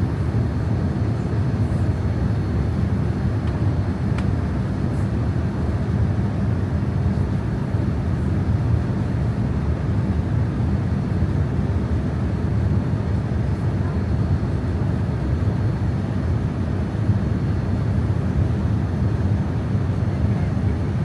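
Steady rumble of a Boeing 787-9's engines and airflow heard inside the passenger cabin in flight, a low even roar with no distinct events.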